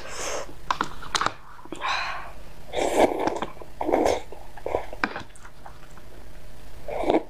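A person slurping Chongqing-style noodles from a cup with chopsticks: about five short noisy slurps, with small clicks in between.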